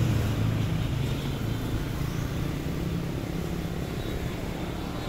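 Steady low engine rumble with a constant hum, loudest at first and slowly fading away.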